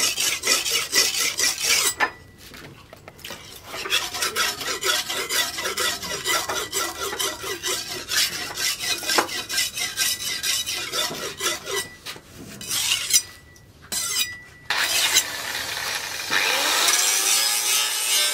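A steel cleaver blade being sharpened on a wet whetstone: quick, rhythmic back-and-forth grinding strokes, several a second. The strokes break off twice in short pauses and give way to a steadier hiss near the end.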